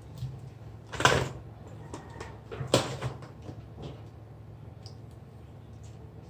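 Two sharp clattering knocks, about a second in and near three seconds in, with a few lighter clicks and ticks between and after them.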